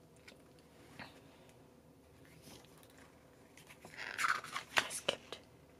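Glossy photobook pages being turned by hand: a brief paper rustle and crackle about four seconds in, followed by a few sharp ticks of the page edge.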